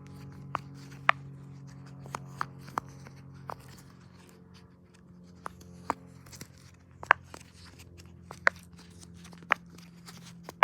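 Silicone pop-it fidget toy being pressed, its bubbles giving sharp, irregular pops one after another. The bubbles are stiff and hard to pop.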